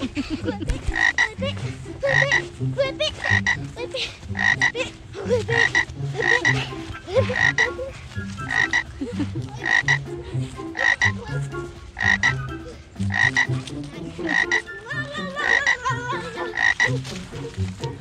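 Frog croaks, a 'ribbit' sound repeating steadily about once a second over a low rhythmic pulse.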